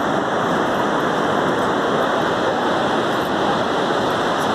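Steady rush of ocean surf breaking on the beach, an even, unbroken wash of noise.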